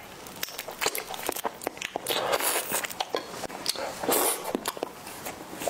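Close-miked eating of raw marinated crab: sharp cracks of shell between the teeth and wet sucking sounds, with louder wet bursts about two seconds in and again about four seconds in.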